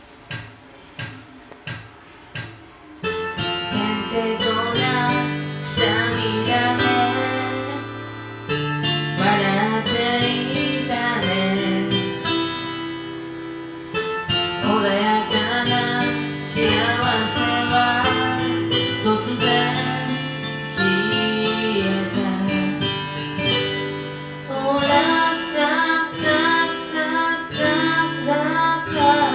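Acoustic-guitar-led pop ballad music: a few separate plucked notes, then the full arrangement comes in about three seconds in and plays on steadily.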